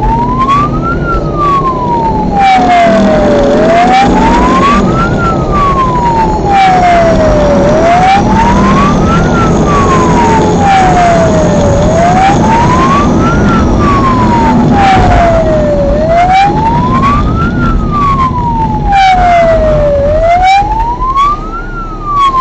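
Wailing siren of a rally course-check car, rising quickly and falling more slowly about once every four seconds, over the car's engine and road noise at speed.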